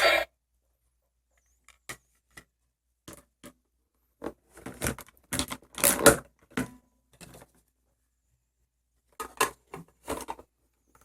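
Hard plastic toy-kitchen pieces clicking and clattering as they are handled: a few scattered taps, then two bursts of rapid clicks, with silence between.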